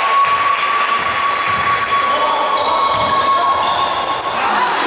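Basketball game sounds on a hardwood court in a large hall: the ball bouncing and sneakers squeaking, with a steady single tone held until about four seconds in.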